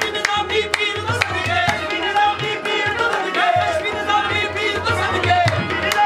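Qawwali music: tabla playing a steady beat under sung vocals.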